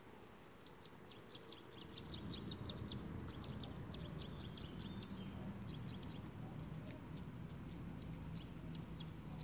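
Birds chirping in the background: a quick run of short, high chirps repeating over a faint steady high whine, with a low rumble setting in about two seconds in.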